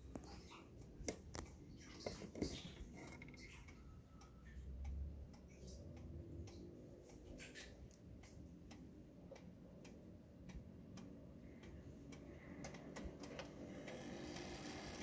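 Thomas Haller antique wall clock ticking faintly, with scattered sharper clicks as the minute hand is turned toward the hour by hand.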